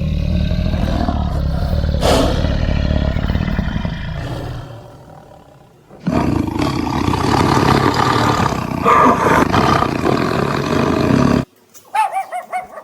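Big cat roaring and growling in two long, deep, rough spells. The first fades out about five seconds in; the second starts abruptly about a second later and cuts off sharply near the end. Short, high, arching yelps follow just before the end.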